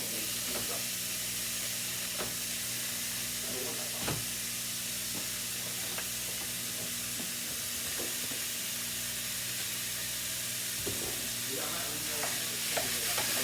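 Chopped meat (ground beef) sizzling steadily as it fries in a little butter in a pan on high heat, with a few sharp clicks of a utensil against the pan as it is stirred.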